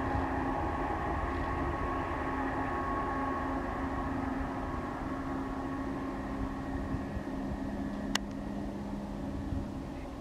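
Boeing 767-300ER jet engines rumbling and whining steadily during the landing rollout, slowly fading as the airliner decelerates away down the runway. A single sharp click sounds about eight seconds in.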